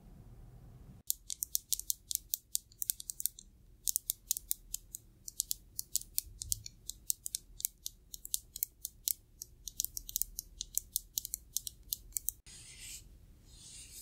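Fingernails tapping rapidly on an aluminium lotion bottle: crisp, high clicks at about six a second, with two short pauses. Near the end this switches to the soft rustle of a terry towel.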